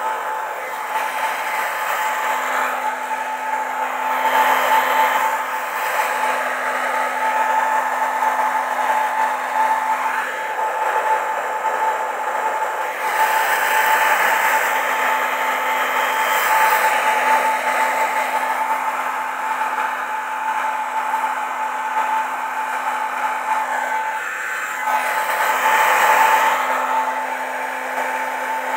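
A small electric fan motor running steadily, blowing air with a constant whine; the rush of air swells and eases every few seconds.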